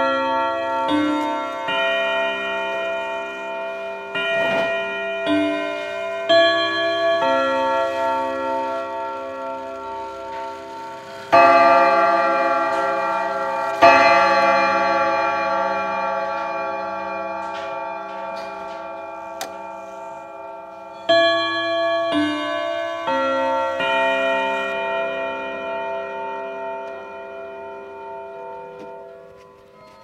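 French ODO 54/8 wall clock chiming on its eight steel and brass rods, struck by hammers. It plays a run of ringing notes, then two loud strikes about two and a half seconds apart that ring out long, then a new run of notes from about 21 seconds that fades away.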